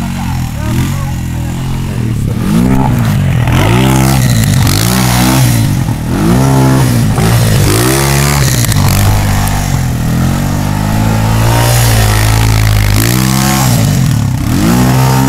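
Honda ATV engine revving up and down over and over as the quad spins donuts in snow, its pitch rising and falling about once a second, with a steadier stretch just past the middle.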